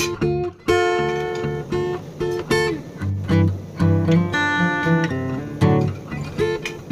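Acoustic guitar music: a run of plucked notes and chords.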